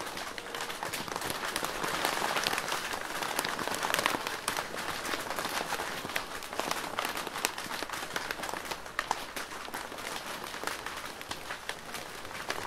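Rain falling on a plastic roof: a dense hiss of drops with many sharp single drop taps on the plastic, a little heavier about two to four seconds in.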